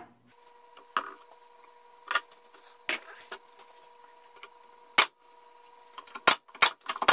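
Wooden hive-cover parts and a plastic glue bottle being handled and set down on a plywood cover: scattered sharp knocks and clicks, several in quick succession near the end, over a faint steady hum.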